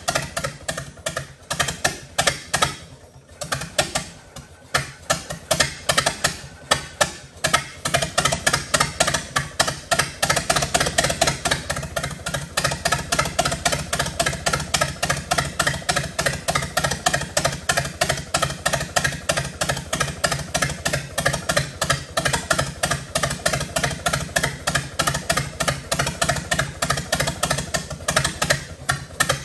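1922 Fordson tractor's four-cylinder side-valve engine running with a rapid, even firing beat; it falters and dips about three seconds in, then picks back up and runs on steadily. It runs fast, high on the idle, which the owner puts down to a poor carburetor.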